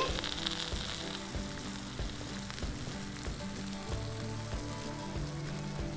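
Juices sizzling and crackling in a hot glass baking dish around a freshly baked whole pompano, with soft background music.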